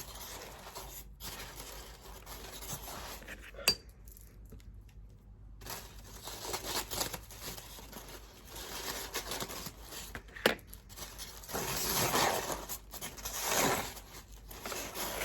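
Hands opening a small cardboard box and its packaging: rustling, crinkling and tearing, with a sharp click about four seconds in and another about ten seconds in. A short lull comes between them, and the rustling is louder near the end.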